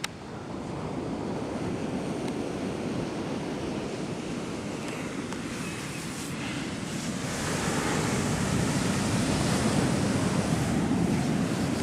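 Pacific Ocean surf: a steady wash of waves that swells louder about two-thirds of the way through as a wave breaks and rushes in, with wind on the microphone.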